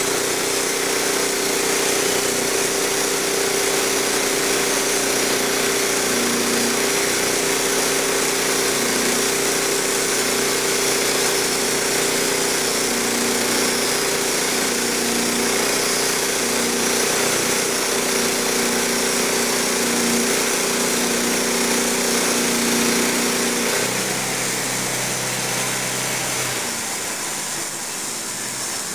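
Wood-Mizer LT15 band sawmill running, its engine driving the band blade steadily through a log. About 24 s in the pitch drops and it gets a little quieter as the engine slows toward idle.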